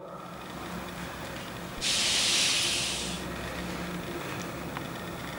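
Steady background hiss, with a louder burst of high hissing about two seconds in that lasts just over a second and cuts off abruptly.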